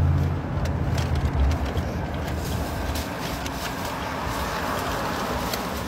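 Steady road noise inside a moving car's cabin, with light crinkling of a paper food bag. A low hum drops away about half a second in.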